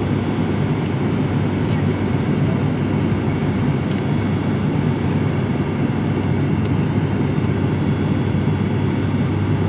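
Steady drone of an airliner's engines and airflow heard from inside the passenger cabin in flight, with an even low hum under a broad rushing noise.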